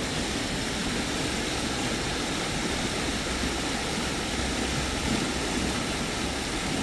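Rain-swollen creek rushing hard over rapids: a steady, unbroken roar of fast water.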